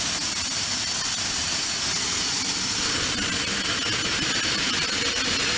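Twin-turboprop Beechcraft King Air running on the ramp: a steady engine noise with a constant high turbine whine over it.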